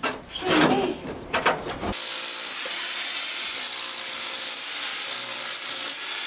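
Electric demolition hammer (motor pick) with a chisel bit running steadily against a stone wall, chipping out stone. It starts about two seconds in, after a few short knocks and bursts.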